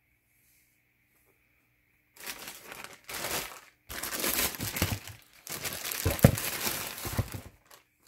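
Tissue paper wrapping a pair of sneakers in their shoebox, crinkling as it is pulled back and handled. The rustling starts about two seconds in and comes in about four bouts.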